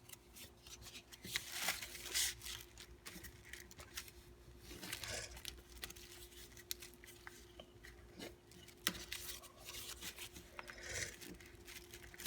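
A sheet of paper being handled and folded into a paper airplane: irregular rustles, crinkles and short creasing scrapes, over a faint steady hum.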